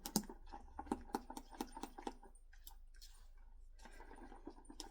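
A utensil tapping and scraping against a mixing bowl as thick pudding is stirred: irregular light clicks, busiest in the first couple of seconds, then thinning out with a few more near the end.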